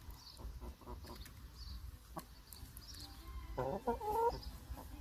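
Brahma chickens pecking corn from a hand, with small sharp pecking clicks, and one of them gives a loud two-part clucking call about three and a half seconds in.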